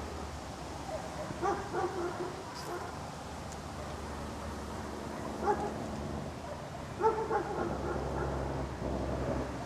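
A dog whining and yipping a few times: short calls about a second and a half in, again around five and a half seconds, and a longer run around seven seconds, over a low steady hum.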